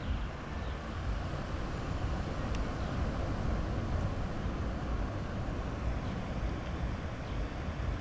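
Sea waves washing onto a beach: a steady rushing with a deep rumble.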